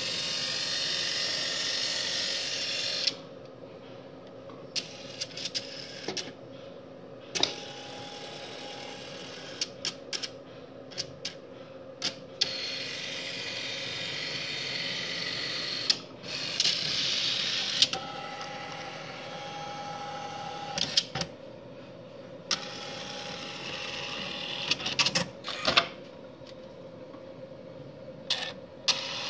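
StorageTek SL48 tape library's robotic picker running its test cycle: several runs of motor whirring a few seconds each as the picker travels and handles a tape cartridge, some with a high steady whine, and sharp clicks between the moves. A steady low hum runs underneath.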